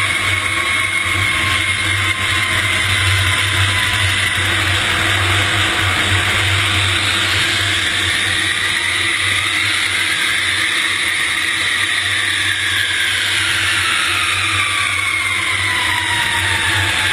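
Aeroplane engines running: a loud, steady rush over a low hum, with whining tones that slowly glide down and up in pitch.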